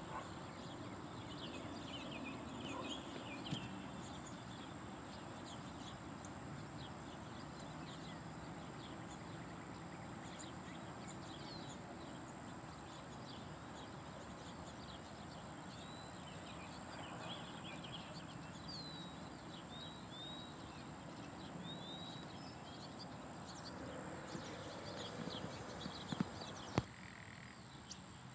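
A continuous high-pitched insect buzz, with short chirping and twittering calls from small birds, likely the finches, scattered through, thickest in the middle and near the end.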